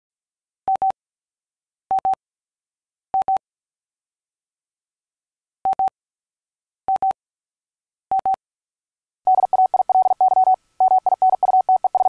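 Single-pitch beep tone keyed on and off: six short double beeps, about a second apart in two groups of three, then rapid Morse code from about nine seconds in.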